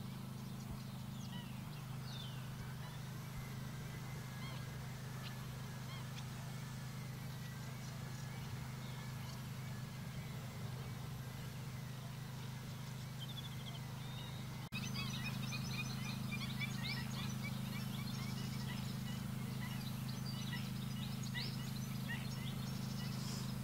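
Greater flamingo flock keeping up a low, steady, goose-like gabbling. About fifteen seconds in it cuts to a louder stretch with many short, higher-pitched bird calls over the drone.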